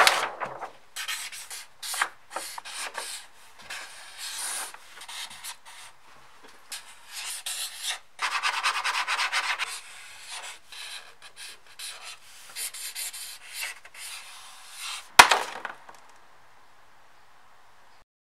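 Felt-tip marker writing on paper in a run of short, irregular strokes, with a single sharp click about fifteen seconds in.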